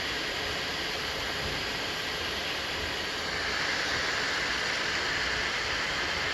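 3D printer running mid-print: a steady whir of fans and motors as the print head moves, getting a little louder about three seconds in.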